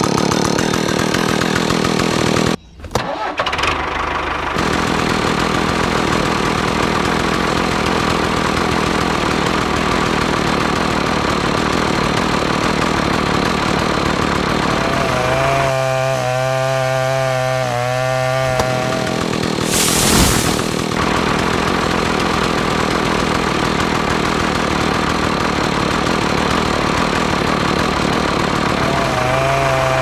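Small electric motor of a homemade miniature circular saw spinning its toothed metal blade with a loud, steady whir. The sound cuts out for a moment about three seconds in and comes back.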